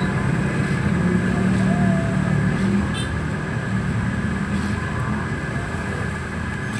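Radio-controlled toy excavator's small electric motors and gearboxes whirring steadily, with a few faint short high chirps over the top.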